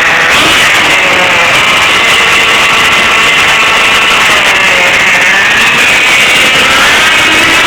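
Small nitro engine of a Fazer GP-Ten RC car running without its exhaust header: a loud, harsh buzz whose pitch dips around four to five seconds in and climbs again with the throttle.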